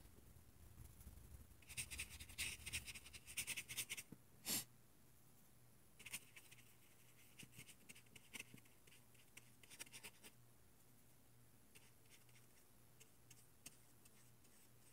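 Small watercolor brush stroking a light wash across paper: faint, soft scratchy brushing in short runs, with one brief louder swish about four and a half seconds in.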